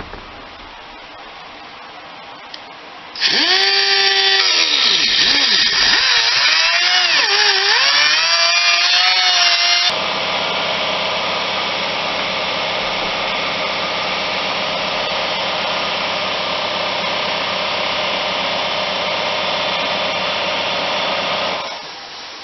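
Cutoff wheel cutting into a fiberglass console. It starts about three seconds in, and its whine dips and recovers as the wheel bites. About ten seconds in it changes abruptly to a steadier, noisier cutting sound, which stops shortly before the end.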